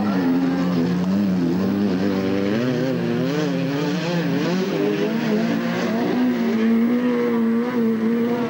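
Engines of battered, stripped-down rodeocross cars racing on a dirt track, their pitch rising and falling as they rev up and ease off.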